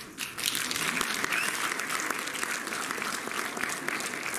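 Audience applauding: a few scattered claps, then many hands clapping steadily from about half a second in.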